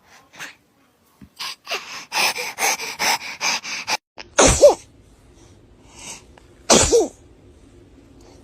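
A baby coughing and sneezing: a quick run of short coughs, then two loud sneezes about two seconds apart.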